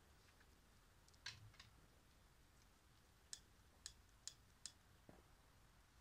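Near silence broken by a few faint, sharp clicks, four of them about half a second apart, as a lighter is struck to light firecracker fuses.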